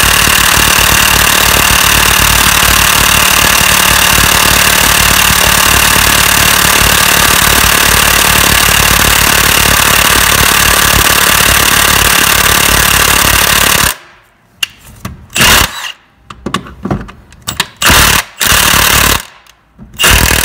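Milwaukee M18 Fuel One-Key high-torque 1/2-inch impact wrench hammering a 19 mm socket on a crank pulley bolt, loud and unbroken for about fourteen seconds, then stopping suddenly. Several short bursts of the wrench follow, with gaps between them.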